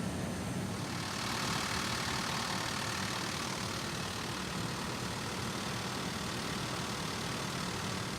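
Steady engine rumble with a rushing hiss that swells in about a second in and then holds.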